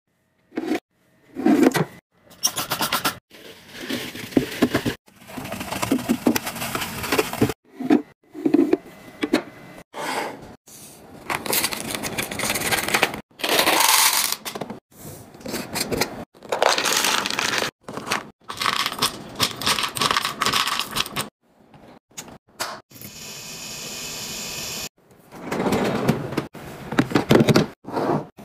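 Packaged drinks and snacks being handled and set into a mini fridge: rustling, scraping and clattering, in short separate clips that cut off suddenly one after another.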